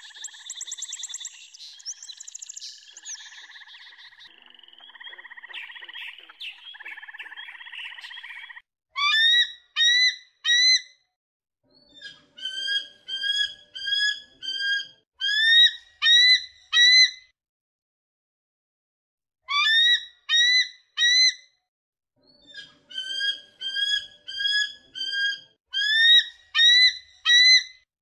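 A bald eagle calling in four bouts of rapid, high, slightly rising chirping notes, with silence between the bouts. Before this, for the first eight seconds or so, a steadier chatter of calls from Inca terns.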